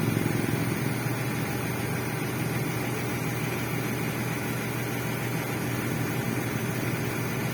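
Engine running steadily at idle, a constant low hum, with no change in speed.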